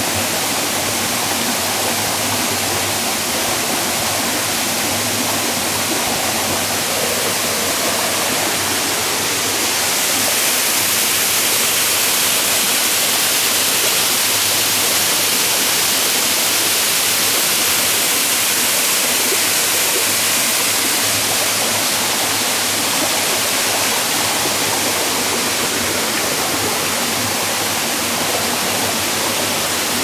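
Steady rush of water: a spring welling up and bubbling through a pool, then a small waterfall splashing down a rock face. The rush grows louder and hissier about ten seconds in and eases again a little past twenty seconds.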